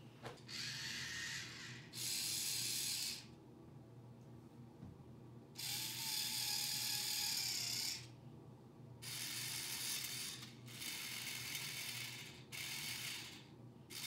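Small electric motors of a remote-control Thames & Kosmos Mars rover model whirring through its gears in about six bursts of one to two and a half seconds, starting and stopping as the remote's buttons are pressed.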